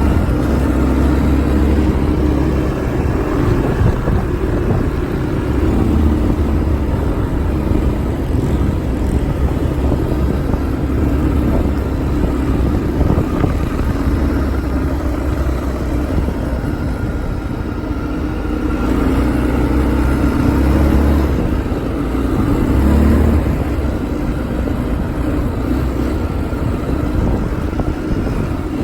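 ATV engine running steadily with a loud low rumble that swells and eases a little, as on a ride.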